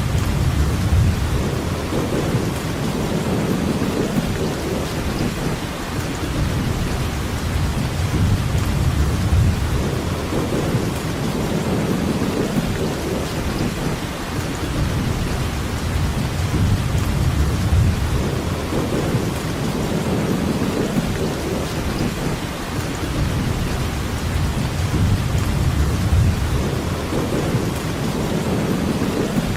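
Steady heavy rainfall, an even hiss, over a low rumble that swells and fades every few seconds.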